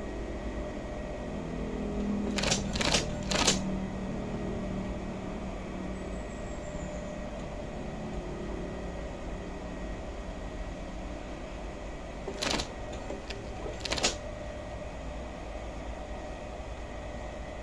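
Union Special 35800 feed-off-the-arm chainstitch machine, its motor humming steadily while denim is eased through. Sharp mechanical clicks and clacks come in two short clusters: three a few seconds in, and two or three more about two thirds of the way through.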